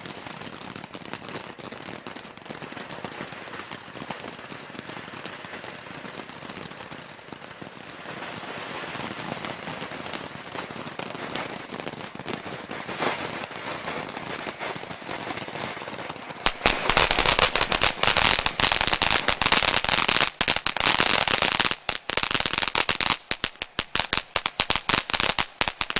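Cutting Edge 'Shipwrecked Fountain' ground firework burning: a steady hiss of spraying sparks for about sixteen seconds, then much louder, dense crackling for the last ten seconds or so.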